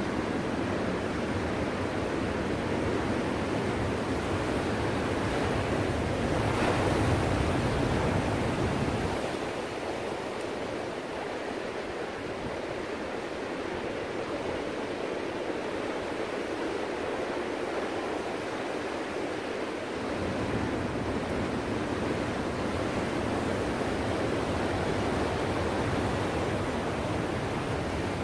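Ocean surf: a steady wash of breaking waves, swelling louder about seven seconds in. The deep rumble underneath drops away for about ten seconds in the middle, then returns.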